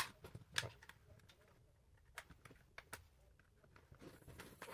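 Plastic housing of an Eachine EV100 FPV goggle clicking as its snap-fit seam is pried open, one sharp snap at the start and scattered softer clicks after it.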